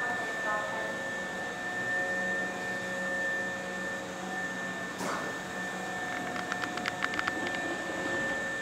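A parked Hankyu 1300-series electric train's on-board equipment running: a steady fan-like drone with a constant high whine. A quick run of about eight light clicks comes near the end.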